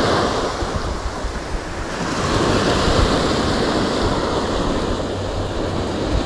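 Sea surf washing against the shore, swelling again about two seconds in, with wind rumbling on the microphone.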